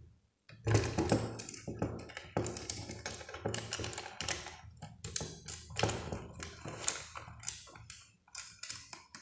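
Fingers handling a wire and the brass screw terminals of a switch and socket on a board: irregular small clicks, taps and rustles as the wire is wrapped around a terminal, over a faint low hum.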